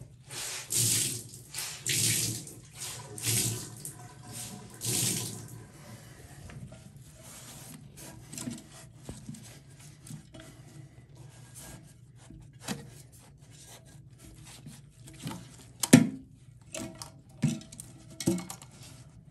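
Water sloshing and splashing in a toilet tank as a towel soaks up and wrings out the last of the water: four or five swishes about a second apart, then quieter dripping and handling taps, with one sharp click later on.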